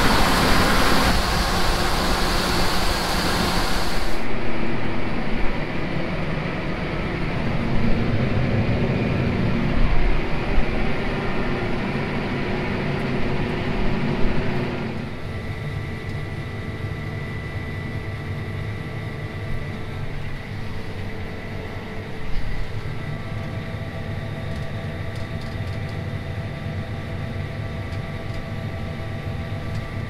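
Heavy farm machinery running steadily. In the second half it settles into a steady hum with several held tones, which fits the tracked tractor and the grain cart's unloading auger pouring corn into a truck, heard from the tractor cab. Earlier the noise is hissier and changes character at about four seconds and again around fifteen seconds.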